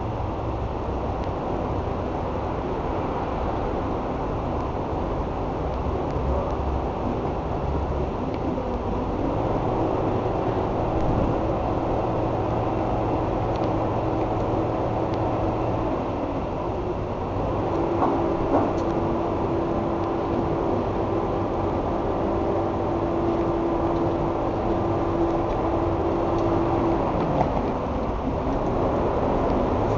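Electric welding arc on a motorcycle's steel muffler end, welding up a crack: a steady hiss with a buzzing hum that comes on about a third of the way in, stops briefly past the middle, then runs again until near the end.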